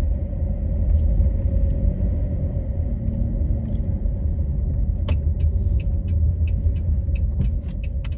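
Steady low rumble of a car driving, heard from inside the cabin. About five seconds in, a turn-signal indicator starts clicking at an even pace, roughly three clicks a second.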